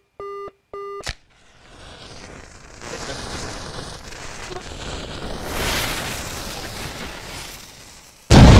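Two short electronic beeps and a quick rising sweep, then a hiss that swells for several seconds and breaks into a sudden loud boom near the end.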